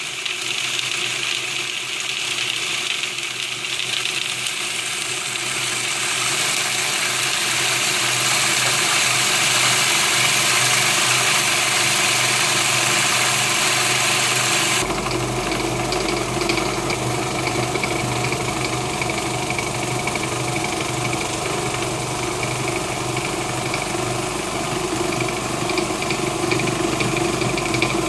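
Magimix Compact 3150 food processor running steadily, its blade grinding peanuts into peanut butter. About halfway through the sound changes abruptly, turning deeper with less hiss.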